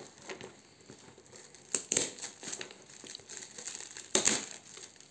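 Shiny purple foil gift-wrapping paper crinkling and tearing as a child's hands pull it off a box, with two louder crackles about two and four seconds in.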